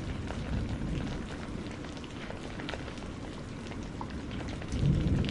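Flash-flood torrent of muddy water rushing down a hillside, a steady noisy wash with faint spatters, swelling louder near the end.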